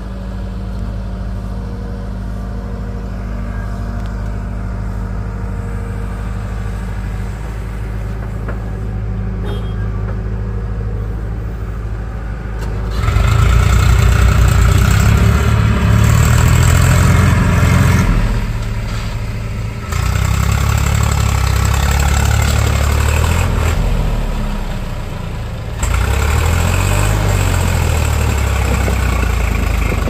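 Bull backhoe loader's diesel engine running steadily while it digs. About halfway through it gives way to a louder Swaraj 744 FE tractor's diesel engine pulling a loaded trailer, its engine speed rising and falling, with several abrupt changes in the sound.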